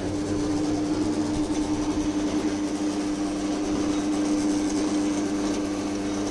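Electric sevai (vermicelli) extruder machine switched on and running with a steady hum while it presses kneaded wheat dough.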